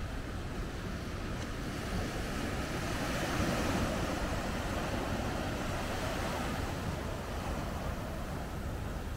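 Small ocean waves breaking and washing up a sandy beach, one wash swelling loudest about three to four seconds in, over a steady low rumble of wind on the microphone.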